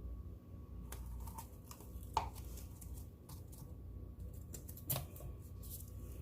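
Scattered light clicks and taps of plastic paint bottles and cups being handled while acrylic paint is layered into a pour cup, with two sharper knocks about two seconds in and near five seconds.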